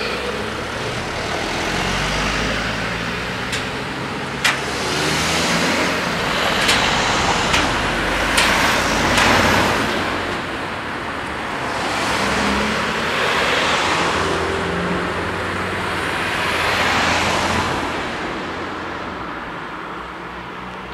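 Cars driving one after another across a railway level crossing, engine and tyre noise swelling and fading as each passes. A few sharp knocks come in the middle.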